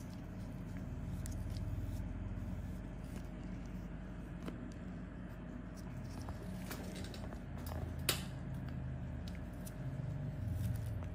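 Steady low room hum with a faint steady tone, broken by a few short sharp clicks, the loudest about eight seconds in.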